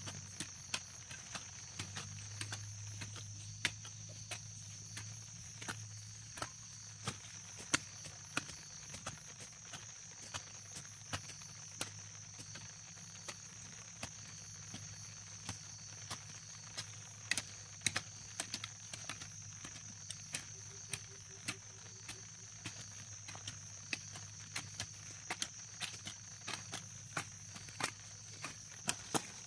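Two hand hoes chopping into grassy soil: irregular dull strikes, one or two a second, over a steady high trilling of insects.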